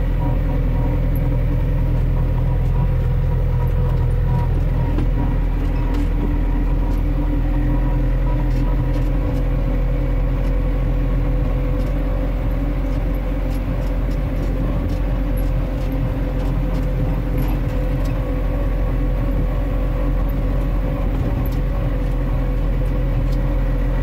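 Farm tractor engine running steadily at working speed, heard from inside the cab.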